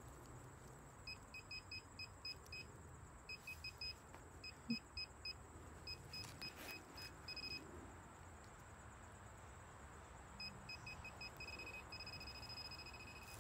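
Metal detector beeping over a buried metal target: runs of short, high beeps, with a steady held tone near the end.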